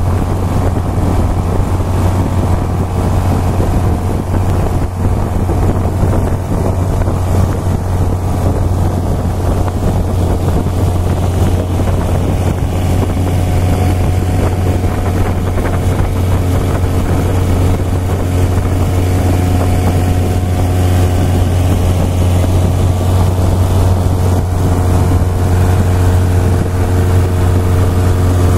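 Long-tail boat's engine running steadily at cruising speed, a loud constant drone with a deep hum, over the rush of water and spray along the hull.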